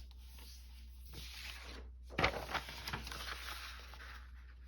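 Sheets of grid paper rustling and sliding as they are handled and stacked, with a couple of light taps about two seconds in.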